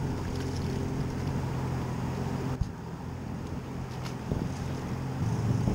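Steady low engine hum, with a single sharp click about two and a half seconds in.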